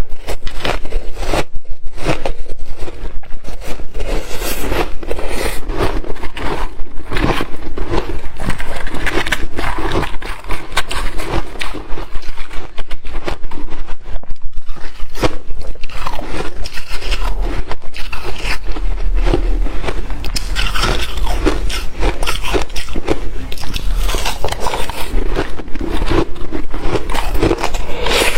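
Close-miked biting and chewing of fine shaved ice and freezer frost: a steady run of soft, crackly crunches.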